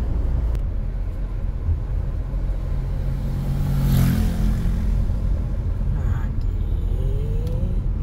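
Car engine and road rumble heard from inside a moving car, with a louder swell about four seconds in.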